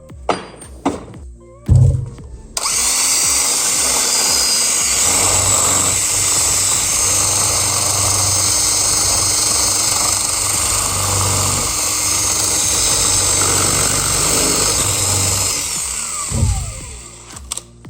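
Electric drill running steadily for about thirteen seconds, boring into a metal lock cylinder, with a few knocks before it starts and a thump just after it stops.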